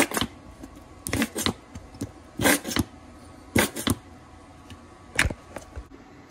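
Plastic squeeze bottle of Miracle Whip sputtering as it is squeezed: about five short squirts of air and dressing, roughly a second apart. The bottle is nearly empty.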